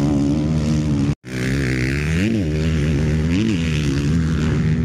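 Motocross dirt bike engines running on the track, rising and falling twice in quick revs as the riders work the throttle. The sound cuts out completely for a moment about a second in.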